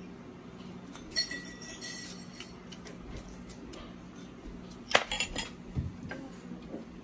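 Tableware sounds: about a second in, a spoon strikes the glass sundae dish and it rings briefly. Near five seconds comes a short clatter of several knocks, as a bowl with a spoon in it is set on the table, followed by a dull thud. A low steady hum runs underneath.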